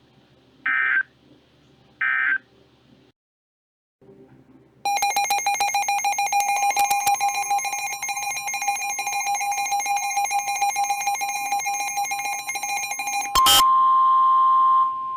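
Emergency Alert System tones: two short data bursts of an end-of-message signal, then about two seconds of silence. Then a loud, harsh, steady two-tone alert signal runs for about eight seconds, and after a sharp click near the end it gives way to a single steady tone.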